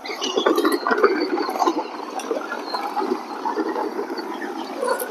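Leather bridle and bit being handled and slipped over a horse's head: continuous rustling with scattered small clicks.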